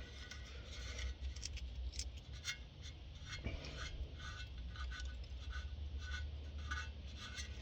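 Faint handling noises: light scratching and small scattered ticks, over a steady low hum.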